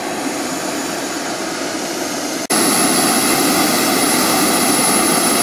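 Jet engines of a large radio-controlled Airbus A330 model running as it rolls along the runway, a steady rushing sound. About halfway through it jumps louder, with a thin high whine on top.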